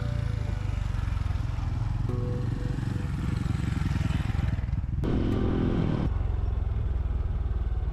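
Honda CT125 motorcycle's single-cylinder engine running steadily under way, with a brief change in its note about five seconds in.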